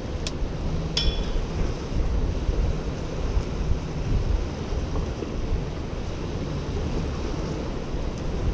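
Wind buffeting the microphone over surf washing against the rock jetty, with two short clicks in the first second.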